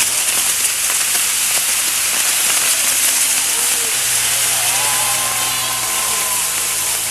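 Maltese mechanized ground fireworks: many gerbs (fountains) burning on a frame and driving spinning wheels, giving a loud, steady, dense hiss, with sharp crackles in the first second or so.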